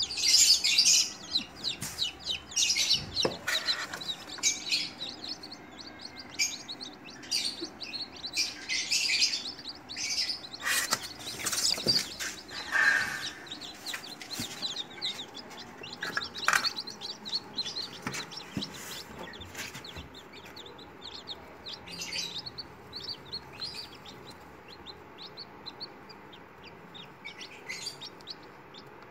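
A brood of newly hatched chicken chicks peeping, many short high calls overlapping. The peeping is busiest in the first half and thins out toward the end.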